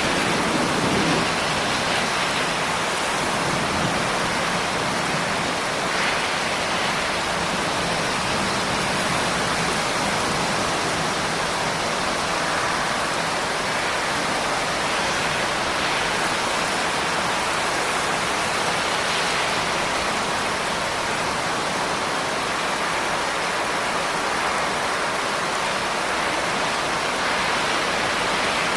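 Steady, heavy rain: a dense, even hiss of raindrops with no breaks.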